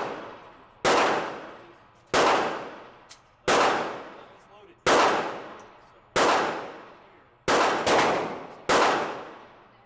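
Eight handgun shots at a firing range, each a sharp crack followed by a long echoing decay. They come at an even pace about a second and a half apart, then a quicker pair and a last shot near the end.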